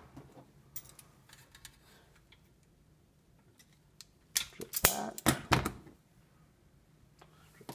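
Hand tools clicking on electrical wiring: a few faint clicks, then a quick cluster of sharp clicks and snaps about four seconds in as a wire stripper cuts and strips the green ground wire.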